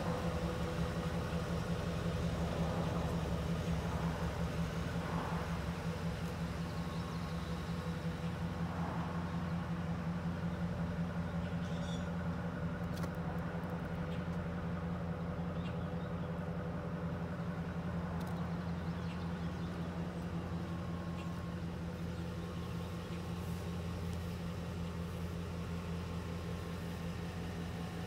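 Ford utility-body truck's engine idling: a steady low hum, with a few faint clicks in the middle.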